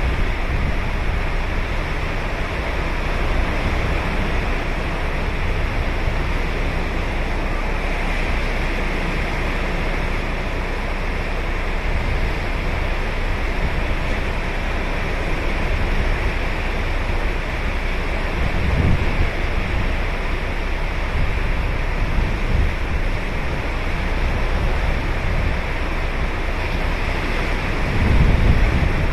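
Ocean surf breaking and washing on a sandy beach as a steady rush, with low gusts of wind buffeting the microphone about two-thirds of the way through and again near the end.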